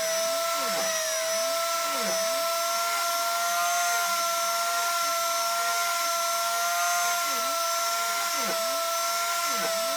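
A small electric power tool's motor running steadily, with a constant whine that holds one pitch.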